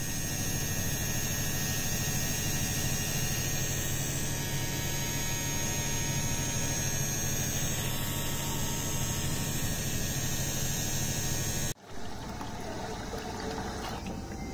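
Small Comet Elegant 24 V DC submersible pump running with a steady hum and a faint high whine. About twelve seconds in, this gives way to water bubbling and trickling as the pump runs submerged in a pan of water.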